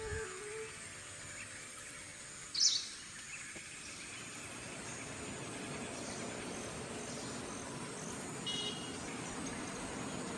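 Outdoor ambience: a steady insect drone with a short, high chirp about two and a half seconds in and a fainter one near the end.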